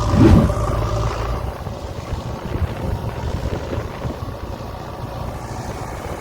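JCB 3DX backhoe loader's diesel engine running, with a loud surge about a quarter second in; after about a second and a half the steady engine note drops away, leaving a quieter, rougher rumble and wind noise.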